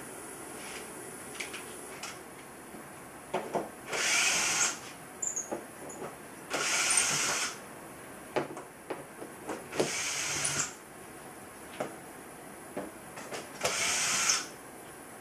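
Cordless drill or driver run in four short bursts, backing out the screws that hold the workpiece to the CNC table, with clicks of handling between the bursts.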